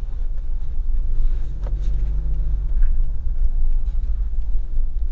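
Steady low in-cabin rumble of a Toyota Land Cruiser Prado with the 2.8-litre turbo-diesel four-cylinder, driving on city streets, with a single click about a third of the way in.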